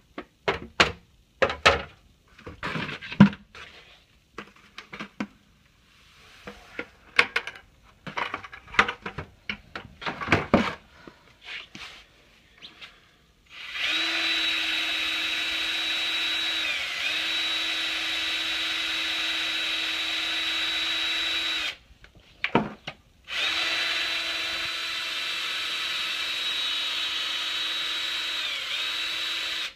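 Irregular knocks and clatters of plastic trays being handled. About halfway through, the Spin It Off magnetic separator's motor starts with a steady whine, stops for a moment, and runs again to the end, its pitch dipping briefly twice. It is spinning the magnet over black sand on a fourth pass to pull out the iron sand.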